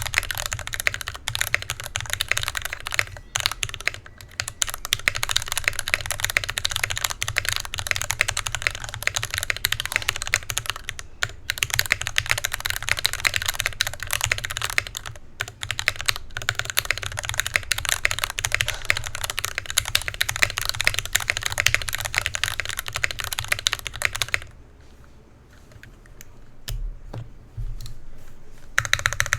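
Fast, steady typing on an NK65 Aluminum mechanical keyboard with an aluminum plate, Gateron Black Box Ink linear switches and PBT keycaps: a dense run of key clacks. Near the end the typing stops for about four seconds, then starts again.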